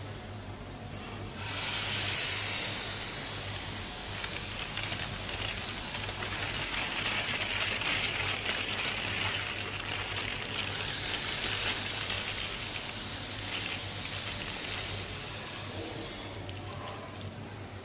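A drawing tool dragged across paper, drawing long straight lines: a hissing scratch that starts about a second and a half in, turns rougher and lower in the middle, turns brighter again, and fades near the end. A faint low hum runs beneath.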